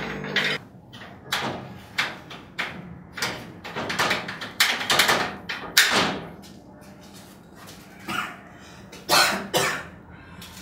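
A stiff metal-framed window and its latch being worked open by hand: a run of knocks, clunks and rattles of the frame, thickest in the middle, then a pause and a few more knocks near the end.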